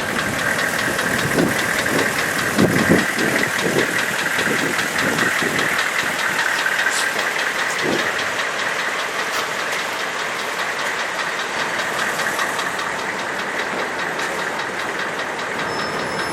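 A vehicle running steadily with a fast, even mechanical ticking, and a few low thumps in the first few seconds.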